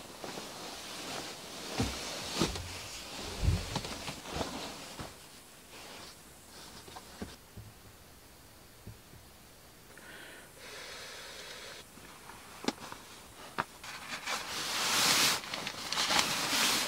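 Fabric rustling of a blanket and bedding, with a few soft thumps in the first few seconds as someone shifts on a mattress, and a longer, louder rustle near the end.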